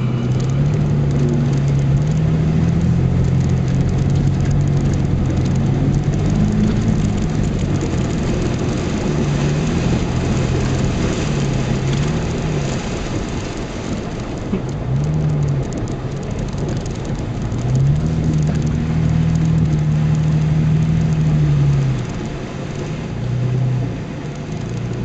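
Off-road 4x4's engine revving up and down as it drives through a shallow river, with water and mud spraying and splashing against the body. The revs rise and fall in short blips, then hold high for a few seconds before dropping back near the end.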